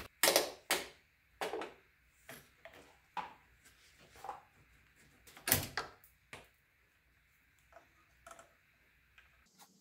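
Irregular plastic clicks and knocks as the auxiliary fan's wiring harness connector is pried apart with a screwdriver and worked loose by hand; the loudest knock comes about five and a half seconds in.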